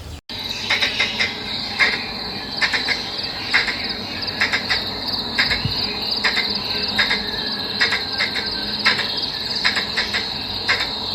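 Outdoor insect chorus, a steady high-pitched trilling typical of crickets, with irregular short clicks about twice a second over it.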